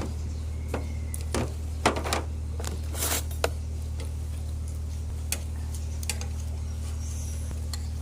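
Tableware clinking during a meal: about eight short, sharp clicks and taps, mostly in the first half, over a steady low hum.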